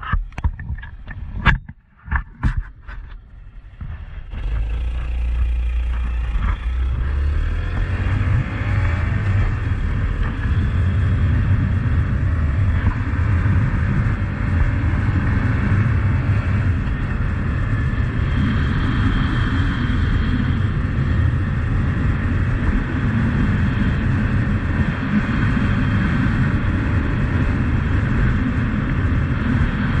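Honda CT125 Trail's single-cylinder engine running as the bike rides along a gravel road, mixed with steady wind rush and tyre noise. A few sharp knocks come in the first few seconds before the ride sound settles in.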